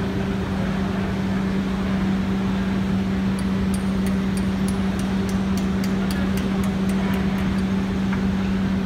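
CNC knife grinding machine running, its grinding head traversing along a long flat blade: a steady motor hum over an even machine noise. Light high ticks come about four a second through the middle.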